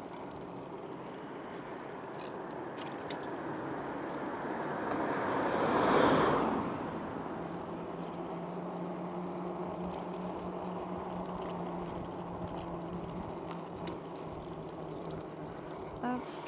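Steady wind and road noise from a moving bicycle, with a vehicle passing: a swell of noise that rises and fades about six seconds in.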